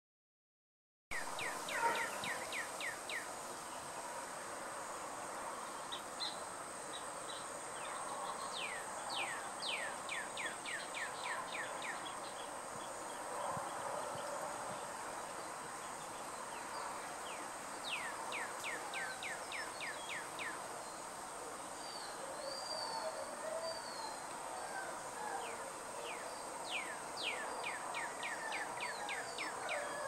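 Birds singing outdoors: a song of quick falling whistled notes comes in runs of six to eight, repeated every several seconds, with a few other chirps between. A steady high insect drone runs underneath.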